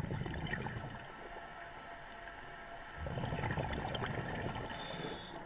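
Underwater bubbling and gurgling from a scuba diver's exhaled breath, in two swells about three seconds apart, with a short high hiss near the end.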